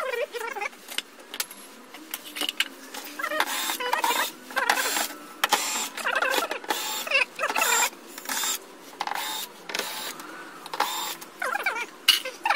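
Small electric motor whirring in short, repeated bursts, about a dozen of them with brief pauses between.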